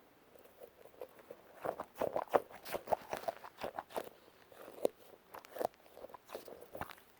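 A plastic fidget toy being fiddled with in the hands: a string of irregular small clicks and crackles, busiest from about one and a half to four seconds in, then sparser.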